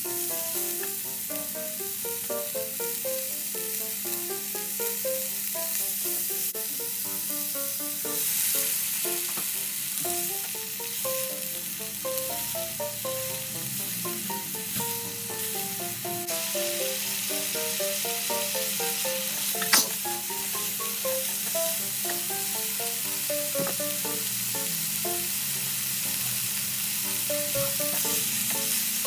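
Vegetables sizzling as they stir-fry in a pan, a steady hiss throughout, with a single sharp clank about two-thirds of the way through. A light melodic background tune plays underneath.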